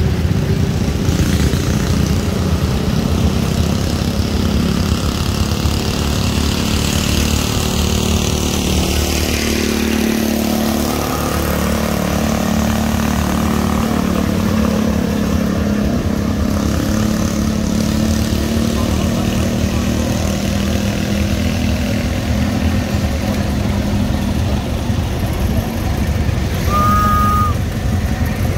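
Antique tractor engines running steadily as they pass by. In the middle one engine's pitch dips and then climbs again. A brief high tone sounds near the end.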